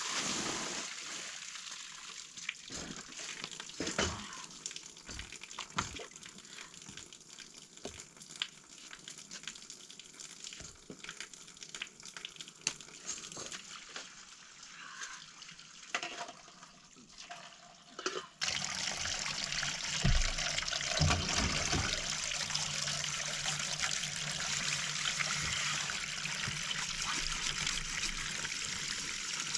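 A hiss with scattered clicks and knocks, then, about two-thirds of the way through, an abrupt change to a steady rush of running water.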